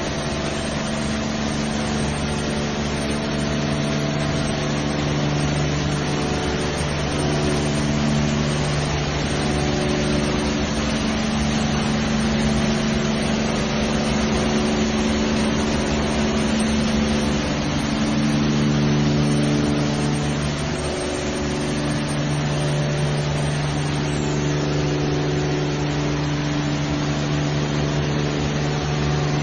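Automatic tunnel car wash running on a car: a steady machine hum from its motors and pumps under an even hiss of spraying water, the hum's tone shifting a little now and then.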